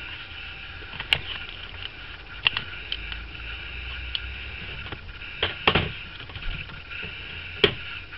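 A few short clicks and rustles from hands pressing heated EVA foam onto a plastic face modeler on the tabletop, over a steady background hiss.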